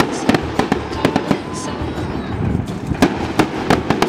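Aerial fireworks going off: an irregular run of sharp bangs and crackles, several a second, the loudest about three seconds in.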